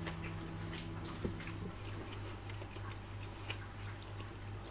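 The last note of mallet-percussion background music rings out and fades away over the first second and a half. Under it a steady low hum goes on, with scattered faint ticks.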